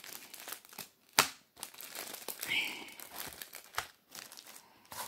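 Clear plastic packaging crinkling and crackling as bagged craft items are handled and moved, with irregular clicks and one sharp click about a second in.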